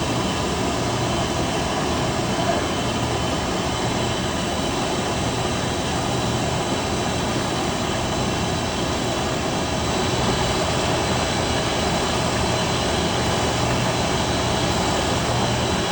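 Large metalworking machine running steadily: a continuous noisy roar with a low hum and faint steady whine tones, rising slightly in level about ten seconds in.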